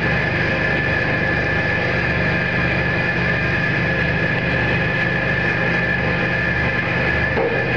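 500 L vacuum homogenizer emulsifier mixer running: a steady motor hum with a constant high whine as the agitator turns the batch.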